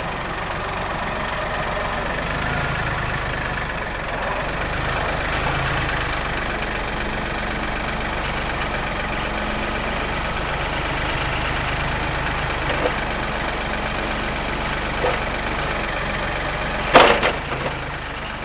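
Massey Ferguson 1835E compact tractor's diesel engine running steadily, with a few short knocks and one louder metallic clank near the end.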